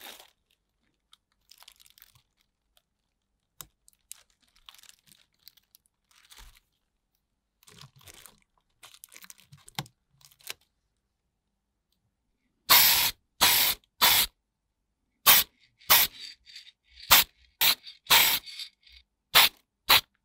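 A thin plastic bag crinkling faintly as it is handled, then about ten short bursts from an aerosol can of clear plastic primer, sprayed in quick succession in the second half.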